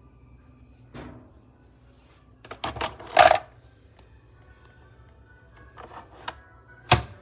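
Several short clinks and knocks of hard objects being handled, the loudest a double clatter a few seconds in and a sharp knock near the end, over faint background music.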